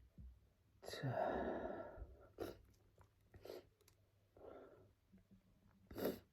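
A man sneezes once, about a second in, then takes several short breaths.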